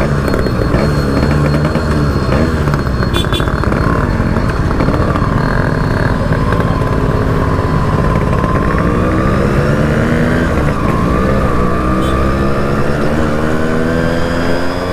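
Yamaha RX two-stroke single-cylinder motorcycle engine running under way, with the pitch climbing steadily through the second half as the bike accelerates.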